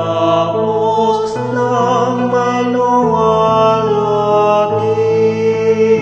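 A vocal group singing a Tagalog Catholic hymn in harmony over instrumental accompaniment, with held, wavering sung notes over a bass line that changes every second or two.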